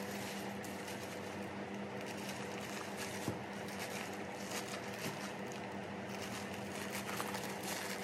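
Thin plastic carrier bag rustling and crinkling as it is handled and pulled open around a frozen block of fish, over a steady low hum.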